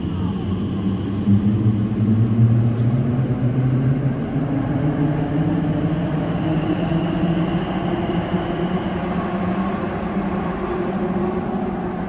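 Elizabeth line Class 345 train pulling out of an underground platform, its motors rising slowly in pitch as it speeds up, over a steady rumble.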